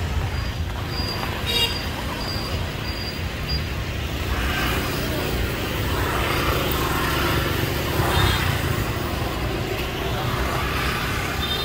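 Busy street at night: a steady hum of motorbike and car traffic passing close by, mixed with the chatter of a crowd of people.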